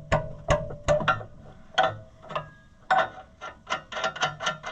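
Hand ratchet wrench clicking as a nut or bolt is worked loose: a few irregular clicks, then a quicker run of strokes at about four or five clicks a second near the end.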